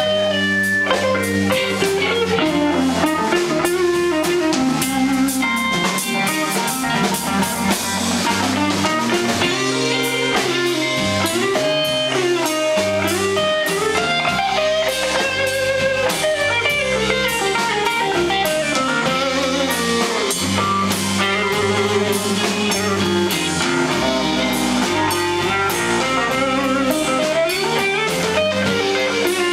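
Live blues band playing, with a hollow-body archtop electric guitar leading over drum kit and bass.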